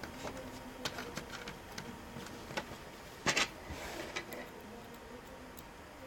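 Scattered small clicks and taps of laptop parts being handled and fitted together, with one louder click and rustle a little over three seconds in.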